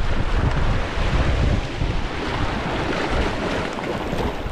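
Sea surf washing onto the beach, with wind buffeting the microphone: a steady rushing noise over a heavy low rumble.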